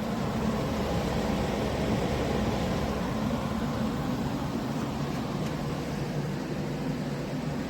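Humhold 14000 BTU portable air conditioner running: a steady rush of fan air with a low hum underneath.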